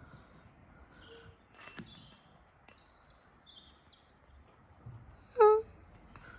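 Low outdoor background noise with a few faint, high bird chirps around three seconds in, and one short, loud, high-pitched squeal about five and a half seconds in.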